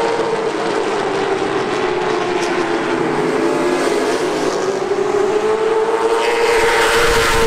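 A pack of NASCAR late model stock cars' V8 engines running hard together at racing speed, a steady drone that swells louder as the pack comes past near the end.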